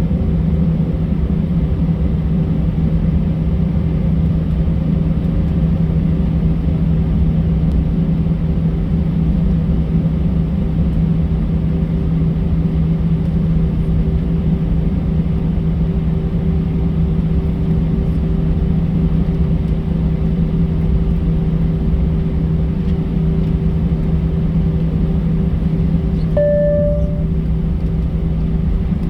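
Steady engine and airflow drone inside an Airbus A320's cabin, with a constant low hum. A short single tone sounds once near the end.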